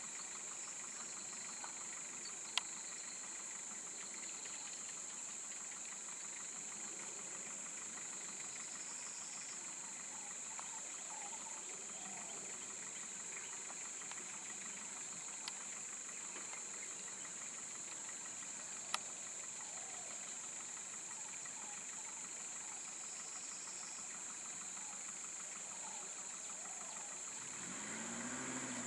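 Steady high-pitched drone of insects in roadside forest, with a vehicle engine idling faintly beneath it and a few sharp clicks. Near the end an engine rises in pitch and gets louder.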